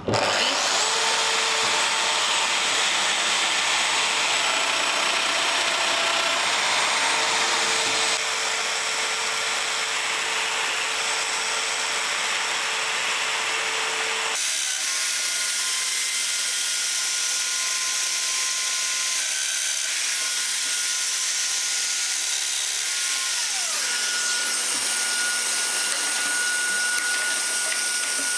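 Festool Domino joiner motor spinning up and running steadily with its dust extractor while plunge-cutting mortises into solid oak. The pitch rises as the motor starts, and the sound changes abruptly twice, about 8 and 14 seconds in.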